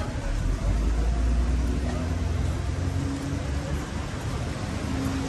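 Road traffic on a wet town street: a strong low engine rumble rises about half a second in and is loudest over the next two to three seconds, then eases, over a steady hiss of city traffic.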